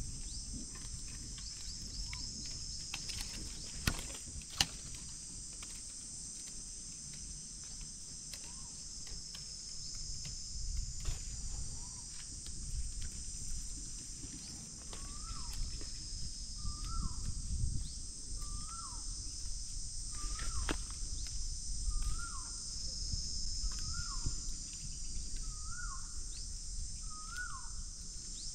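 Steady high-pitched drone of insects in dry forest, with two sharp snaps about four seconds in. From about halfway, a bird repeats a short slurred call roughly once a second.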